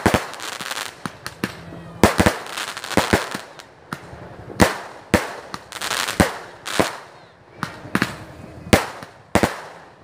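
Aerial fireworks bursting overhead: an uneven run of sharp bangs, roughly one or two a second, with crackling after some of the bursts.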